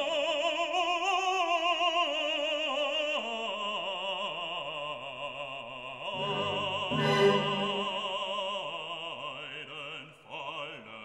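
Operatic singing in classical music, a voice holding long notes with heavy vibrato.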